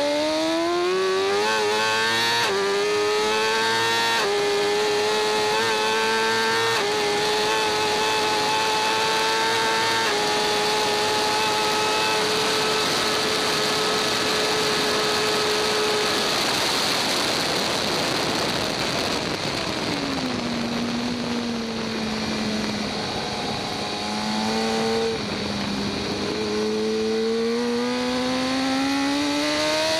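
2014 BMW S1000RR's stock inline-four engine at racing speed: it accelerates hard through several quick upshifts in the first ten seconds, holds a steady high pitch flat out, then closes off and drops through a series of downshifts for braking about two-thirds in, before accelerating hard again near the end. A steady rush of air noise runs underneath.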